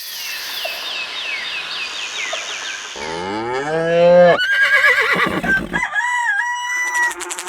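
A quick succession of animal call sound effects. First comes a run of short falling chirps over a hissy background, then a long call that rises steeply in pitch, then wavering and held high calls with a dip in pitch.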